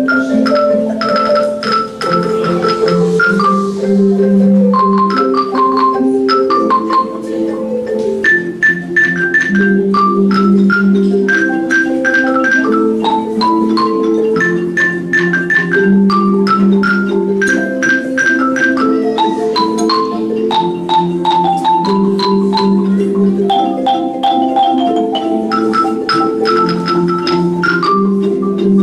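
An ensemble of Orff-style wooden xylophones, soprano xylophones among them, played with mallets: a quick higher melody of struck notes over a lower part of longer repeating notes.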